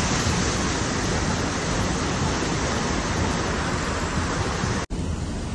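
Fast muddy floodwater rushing in a torrent, a steady dense noise of churning water. Near the end it cuts off abruptly, giving way to the quieter noise of a moving car.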